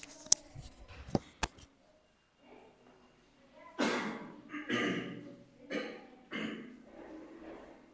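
A few short, sharp clicks in the first second and a half, then a faint, indistinct voice from about four seconds in.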